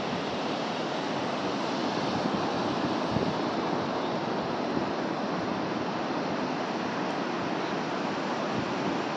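Ocean surf breaking on the beach, a steady even wash of waves.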